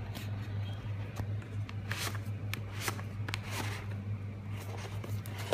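Hands handling a product box and its inner tray: scattered short scrapes, rustles and taps as the box slides open, over a steady low hum.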